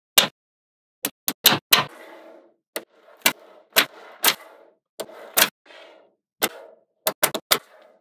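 Small magnet balls snapping together, sharp clicks in quick clusters, several followed by a brief rattle.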